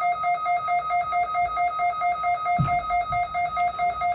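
Electronic alert tone from an Emergency Alert System test, a steady pitched tone pulsing about four times a second. A brief low thud sounds a little past halfway.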